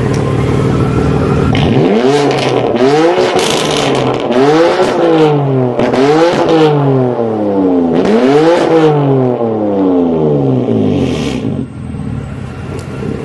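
BMW M4 GTS twin-turbo inline-six, fitted with a Fi Exhaust valved catback and catless downpipe, free-revved while stationary: idle, then about four sharp blips where the pitch sweeps up and falls back, with bursts of crackle as the revs drop, settling back to idle near the end.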